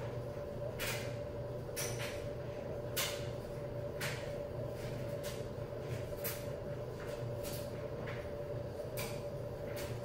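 Short, soft handling noises roughly once a second as hands work a small object by a cardboard carton, over a steady mechanical hum.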